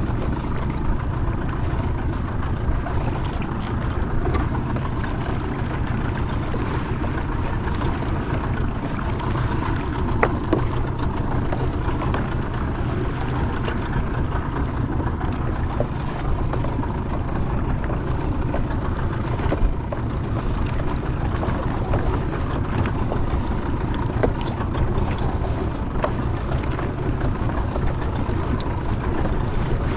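Steady low rumble and wash of a fishing boat at sea, with faint clicks now and then.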